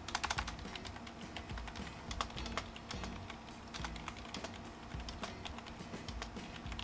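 Typing on a computer keyboard: irregular keystroke clicks, with a quick run of keys just after the start.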